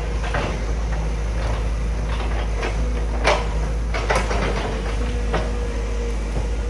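Sumitomo SH200 hydraulic excavator running: a steady diesel drone with a constant whine over it, broken by several sharp knocks and clatters, the loudest about three seconds in.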